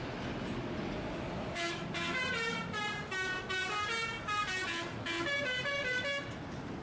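A lorry's musical horn plays a quick tune of short notes that step up and down in pitch. It starts about a second and a half in, breaks briefly near five seconds, and stops shortly before the end.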